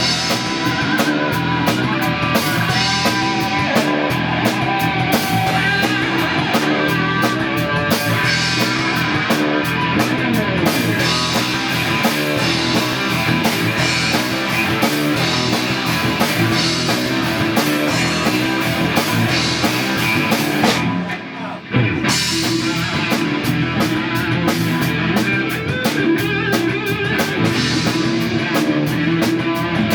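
Rock music played on guitar and drum kit, with a brief break about two-thirds of the way through before the band comes back in.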